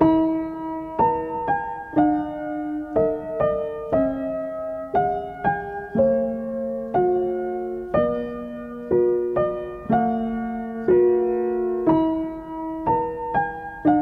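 Slow, gentle piano music, single notes and chords struck about once or twice a second and left to ring.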